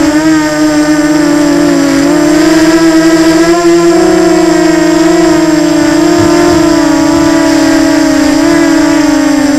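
A small FPV quadcopter's electric motors and propellers whine loudly in flight, heard through its onboard camera. The pitch wavers up and down with the throttle, dipping about two seconds in and rising again around four seconds.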